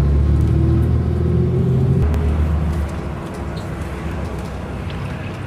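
Heavy truck engine and road noise heard from inside a moving vehicle as a dump truck passes close by: a deep engine drone, loud for the first two to three seconds, then easing off to steady road noise.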